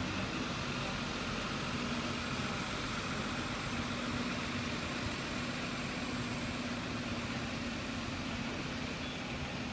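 Steady street traffic noise with a vehicle engine's low, even hum under a constant hiss.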